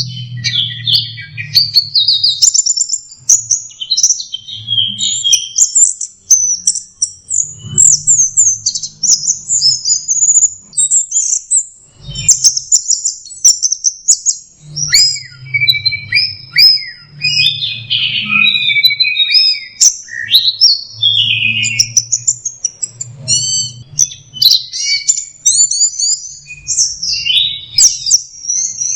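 Orange-headed thrush (anis merah) singing a long, rapid, varied song of quick slurred whistles and chirps with brief pauses, in the 'teler' style. Scattered sharp clicks and a low intermittent rumble sit underneath.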